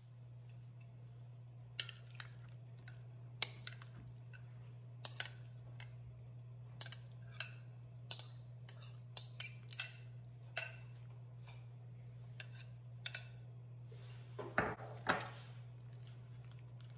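Metal spoon clinking and scraping against a glass bowl and a metal tart pan while cooked diced apple filling is scooped and spread into a tart shell: a string of short, sharp clinks, the loudest few together about two-thirds of the way in, over a steady low hum.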